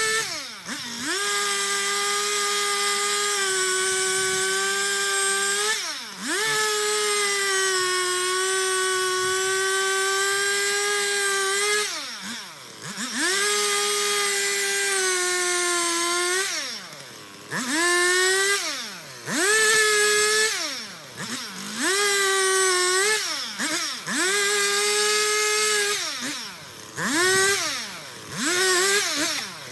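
Stihl chainsaw held at full throttle, with the engine note dropping off and revving back up several times, more often in the second half.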